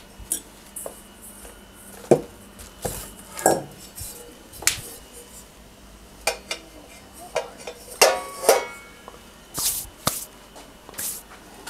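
Pots and kitchen utensils being handled: irregular clinks and knocks, a couple with a short metallic ring.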